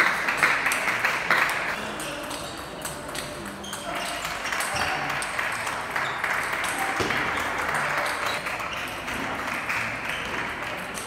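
Table tennis ball clicking sharply off bats and table during rallies, a quick irregular series of light pings that echo in a large hall.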